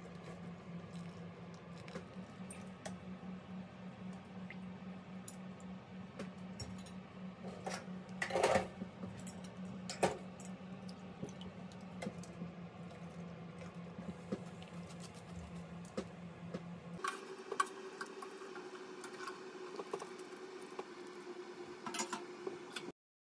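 Kitchen handling sounds over a steady low hum. Chopsticks and a mesh strainer give light clicks and clinks against a pot, with two louder knocks about eight and ten seconds in. About seventeen seconds in, the hum gives way to a higher, fainter tone.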